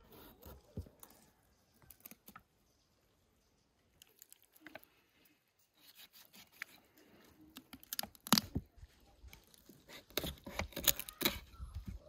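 Knife cutting apart a raw whole duck on a wooden cutting board: irregular clicks, snaps and tearing of skin and joints, with knocks of the blade on the board. There is a quiet stretch about three seconds in, and the sharpest, densest knocks come about eight to eleven seconds in.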